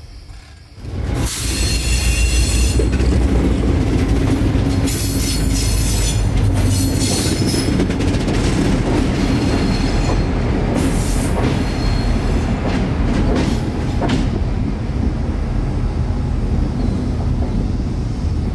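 CSX diesel locomotives rolling slowly past at close range, engines running steadily, starting about a second in. High wheel squeal comes and goes over the rumble.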